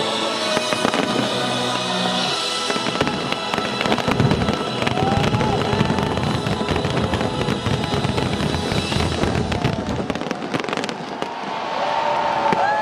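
Fireworks bursting in dense, rapid volleys over a music track. Voices come in near the end.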